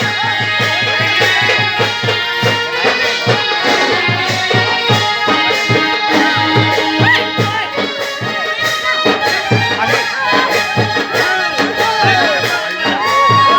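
Background music with a steady beat and held, accordion-like notes, with many short high chirps of lovebirds over it.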